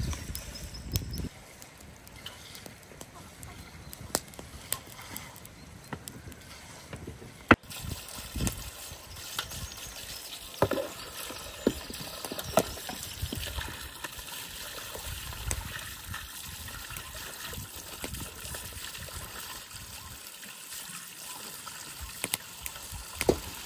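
Water running from a hose into an enamel basin and splashing as pork is rinsed and turned by hand. It starts with a sharp click about a third of the way in. Before that there are only quieter outdoor sounds with a few clicks.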